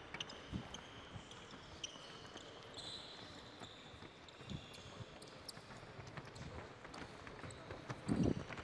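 Faint footfalls and sneaker squeaks of several players jogging on a wooden sports-hall floor, scattered taps with a few short high squeaks, and a brief low sound near the end.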